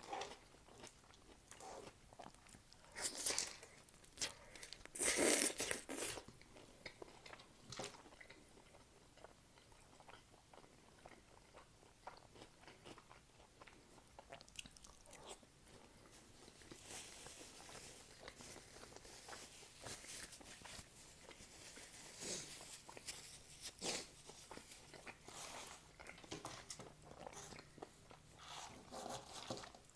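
Close-up mukbang eating sounds: bites into a shawarma wrap, crunching the vegetables, then chewing. The loudest bites come about three and five seconds in, with quieter chewing and a few more bites later on.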